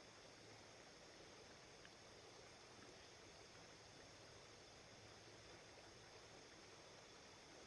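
Near silence: a faint, steady outdoor hiss with no distinct sounds standing out.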